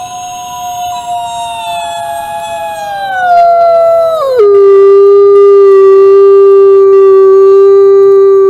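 Wolves howling: long drawn-out howls whose pitch slides slowly down, then about halfway through drops to a lower note held steady.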